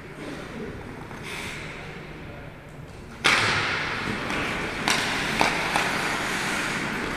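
Ice hockey play starting from a faceoff: about three seconds in, skate blades begin scraping and carving the ice with a sudden loud hiss, and sticks and puck clack sharply a couple of times.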